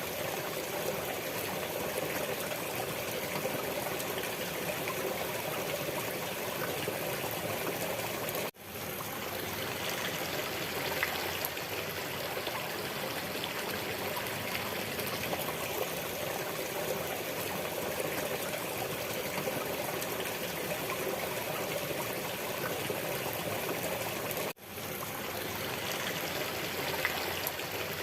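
Steady running water, like a flowing stream or brook, trickling without a break. It cuts out for an instant twice, about eight seconds in and near the end, and fades back in each time, as at the seam of a looped recording.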